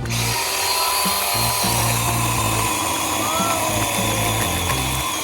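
Toy chainsaw's electronic chainsaw sound effect buzzing steadily, switched on suddenly by its noise button, over background music.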